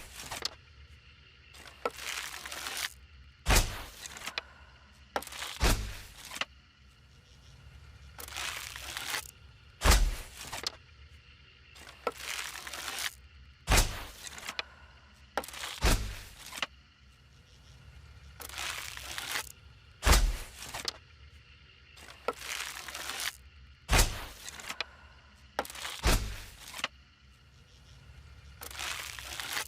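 Bow and arrow sound effects, over and over: short noisy whooshes and sharp strikes with a low thud, about every two to four seconds.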